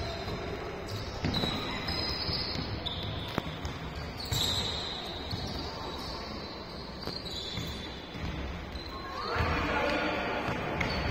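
Indoor korfball game: sneakers squeak on the court floor every second or so, with thuds of the ball and feet, over a hall murmur, echoing in the large hall. There is a louder shout near the end.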